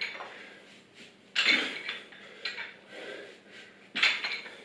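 A pair of dumbbells clinking and rattling as they are lifted from the floor to overhead in repeated reps, with a louder burst about a second in and again near the end.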